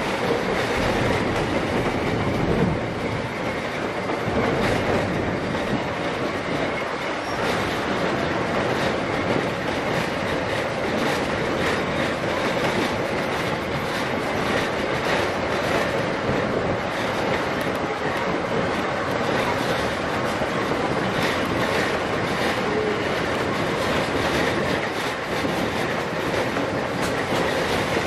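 Narrow-gauge train running along the track: a steady rumble with irregular clicking of the wheels over the rail joints.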